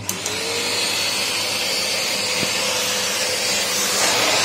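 RZTK Pro Cyclone Marsala bagless cyclone vacuum cleaner switched on for its first run: the motor starts suddenly and spins up with a brief rising whine, then runs steadily with rushing air. The airflow grows a little louder near the end.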